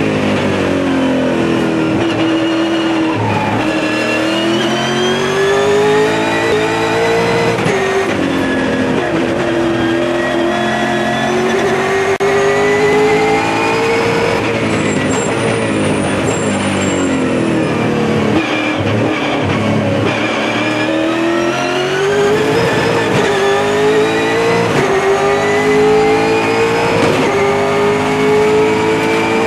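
V8 touring car engine at racing speed, heard from inside the cockpit: its pitch climbs steadily through each gear and drops sharply at several gear changes and under braking for corners, then rises again on the power.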